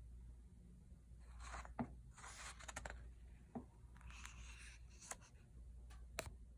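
Faint swishing of the paper pages of a hardcover picture book being turned and handled, in several short strokes, with a few light clicks and taps.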